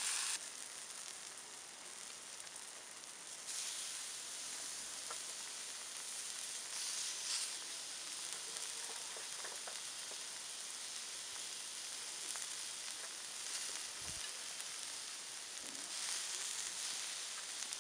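Meat and sliced vegetables sizzling on a hot Himalayan salt block heated over embers. It is a steady, high frying hiss that grows louder in a few stretches.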